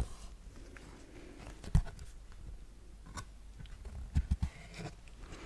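A small cardboard board book handled close to a microphone: stiff card pages turned, with soft clicks and taps from fingers on the card. There is a louder thump just under two seconds in and a few more around four seconds.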